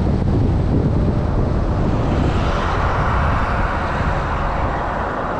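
Car driving: steady road rumble and wind noise. About two seconds in, a broad hiss builds while the low rumble eases.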